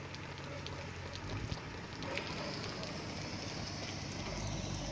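Steady rain falling on a flooded street, an even hiss with scattered small drop ticks. A low rumble builds near the end.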